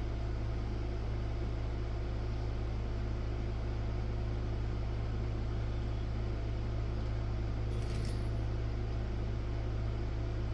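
A steady low hum with a faint tone above it, unchanging throughout, and a faint brief click about eight seconds in.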